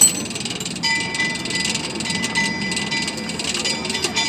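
Metalwork at a blacksmith's anvil: a sharp metal clang at the start, then a run of rapid metallic ticks over a steady ringing tone from about a second in.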